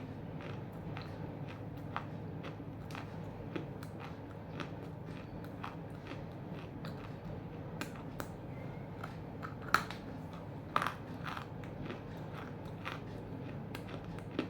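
Biting and chewing half-roasted edible clay chunks close to the microphone: irregular crisp cracks and crunches, with the loudest bites about ten and eleven seconds in. The crunch is soft, and the clay is heavily smoked from roasting. A steady low hum runs underneath.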